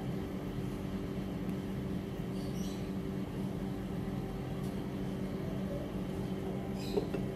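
A steady low machine hum, with a couple of faint short crisp sounds.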